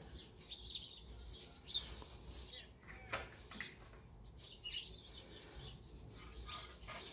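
Faint, scattered bird chirps, with soft rustling and light taps from plastic-gloved hands pinching salt and patting it onto raw ground beef.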